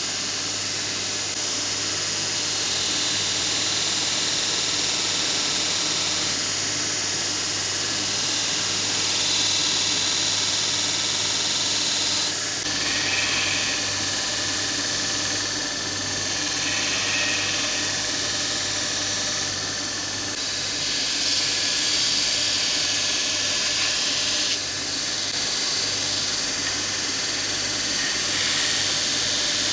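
Belt grinder running, its abrasive belt sanding the wooden scales of a knife handle: a steady motor hum under a hiss that swells and eases as the handle is pressed to the belt.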